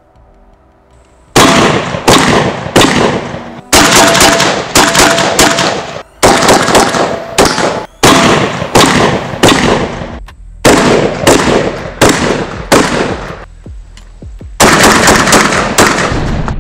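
Rapid strings of shots from a Benelli M4-pattern semi-automatic 12-gauge shotgun, about two shots a second, in several bursts with short breaks. The firing starts about a second in.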